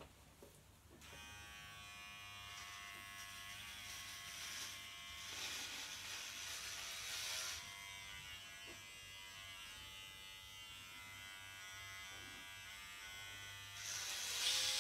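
Electric hair clippers buzzing steadily, starting about a second in, with louder stretches as the blades cut through hair. Near the end the sound grows louder as the clippers chew at the hair, which is blamed on running them sideways instead of with the growth of the hair.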